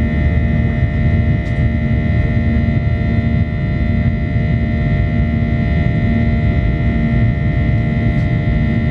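Boeing 737 cabin during takeoff: the CFM56 turbofan engines running loudly, a steady rush of noise with several steady whining tones above it. A low hum switches on and off about once a second.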